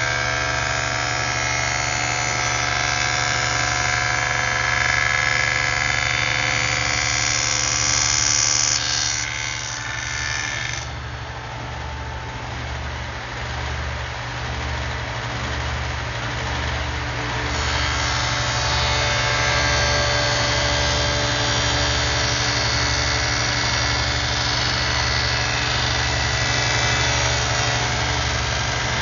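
Table saw running and ripping plywood panels: a steady motor hum under a loud hissing cut. The cutting noise eases off for several seconds near the middle, between one cut and the next, then picks up again.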